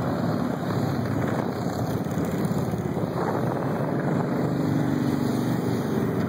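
A procession of cruiser and touring motorcycles riding past one after another, their engines running steadily. A nearer bike's engine grows louder about four seconds in as it passes close by.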